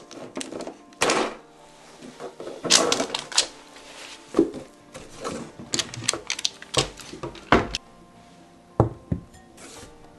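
Parchment paper rustling and crinkling on a baking tray, with sharp clicks and knocks as the tray is handled on a wire cooling rack. The sounds come irregularly, with the longest crinkling spell about three seconds in.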